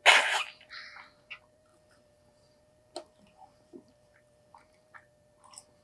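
Eating noises from a person at the table: a short breathy burst at the start, then quiet chewing with a few scattered small clicks and smacks.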